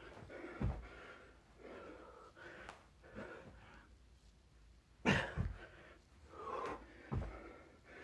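A man panting hard while doing burpees, with thuds as he drops to the floor and lands from the jumps. The loudest thump comes about five seconds in.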